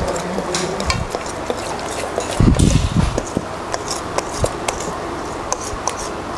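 Wire whisk stirring waffle batter in a stainless steel bowl, clicking and scraping against the metal again and again. A dull low thump comes about two and a half seconds in.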